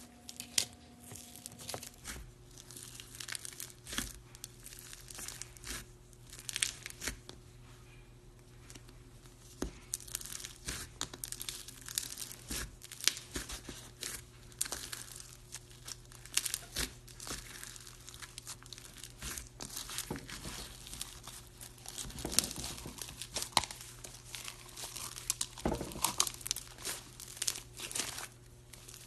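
Slime being squeezed and worked by hand, giving dense, irregular crackling and popping.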